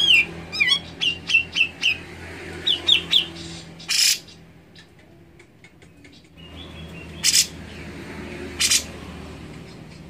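Grey-cheeked bulbul (cucak jenggot) singing: a quick run of about ten short, sliding whistled notes in the first three seconds. Three short harsh, rasping bursts come later, spread through the rest, over a faint low hum.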